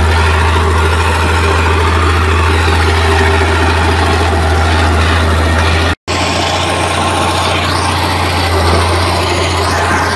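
Heavy diesel earthmoving machinery running steadily with a strong low drone. The sound cuts out for an instant about six seconds in, then resumes a little quieter.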